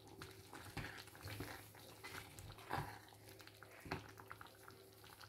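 Wooden spoon stirring a thick stew in a stainless steel pot, with a few faint knocks and scrapes against the pot, the clearest about two and a half and four seconds in, over a low steady hum.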